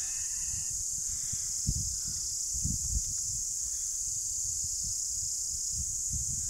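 A steady, high-pitched chorus of insects shrilling without a break, with irregular low rumbles of wind buffeting the microphone beneath it.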